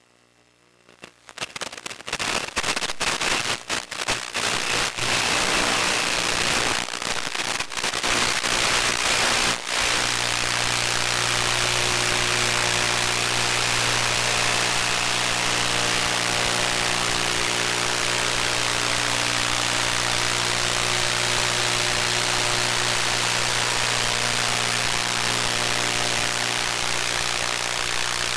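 Radio static from an analog FPV video receiver: loud hiss crackling in and out, then settling about ten seconds in into a steady hiss with a low buzz.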